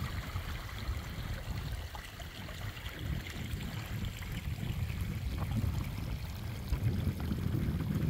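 Gusting wind rumbling on the microphone over the steady rush of a moorland stream, rising and falling unevenly.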